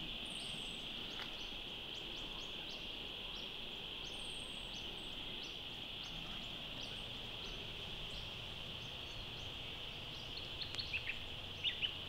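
Bushland chorus: a steady, high-pitched drone with bird calls over it, including a few thin falling whistles and scattered short chirps, and a cluster of louder chirps near the end.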